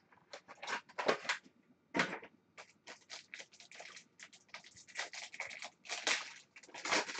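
Foil wrapper of a trading-card pack crinkling and tearing as it is handled and ripped open: a run of sharp crackles, a few at first and coming thick and fast from about three seconds in.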